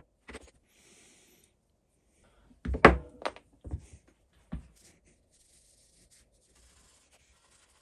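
Small metal parts being handled and set down on a workbench: a few sharp knocks, the loudest cluster about three seconds in, with faint rubbing in between.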